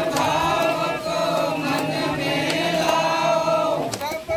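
A group of voices chanting together in unison, holding long, wavering notes as in a devotional chant. The singing breaks off briefly about four seconds in.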